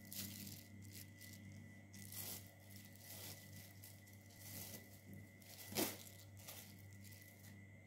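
Faint, scattered crinkling and rustling of clear plastic sheeting and paper being handled, with one sharper crackle about six seconds in, over a faint steady hum.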